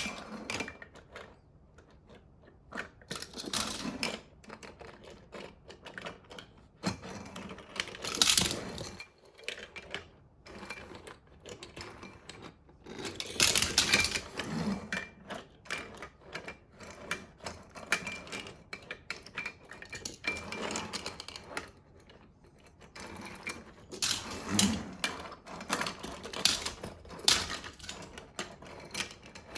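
Diecast toy cars clicking and clattering against hard plastic and metal in irregular bursts of small rattles, with louder clusters of clatter about a quarter of the way in, near the middle and again later on.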